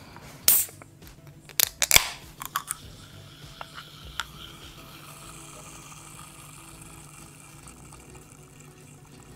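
Aluminium drink can's pull tab clicking and snapping under the fingers: a handful of sharp clicks in the first few seconds, the loudest about half a second and two seconds in, then only a few faint ticks.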